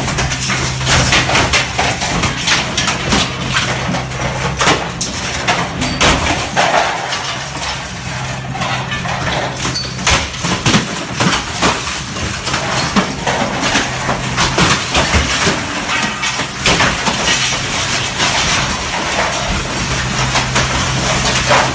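Tracked excavator (digger) smashing through a building's glass front and frame: repeated crashes and clattering of breaking glass and metal over the steady hum of its engine.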